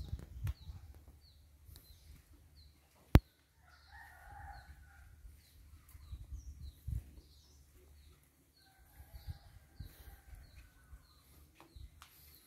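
Roosters crowing, one crow about four seconds in and a longer one near nine seconds, over a small bird's short high chirps repeating about twice a second. A single sharp click a little after three seconds in is the loudest sound.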